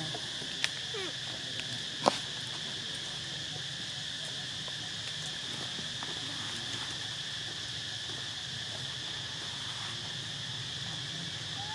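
A steady, high-pitched insect chorus droning without a break, with two sharp snaps: one about half a second in and a louder one about two seconds in.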